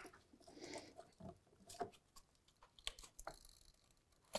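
Faint, scattered small clicks and rustles as the slackened timing belt is worked by hand off the exhaust camshaft sprocket.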